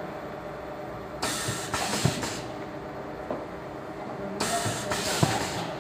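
Automatic pouch packing and sealing machine running with a steady hum. Its pneumatic cylinders cycle twice, each stroke a burst of compressed-air hiss about a second long ending in a knock, about three seconds apart.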